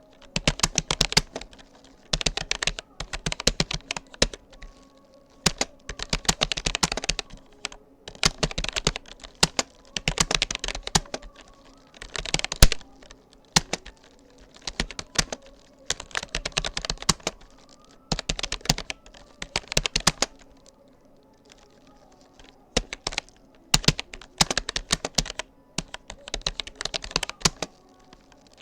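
Typing on a Rapoo computer keyboard: quick runs of key clicks in bursts of a second or two, broken by short pauses.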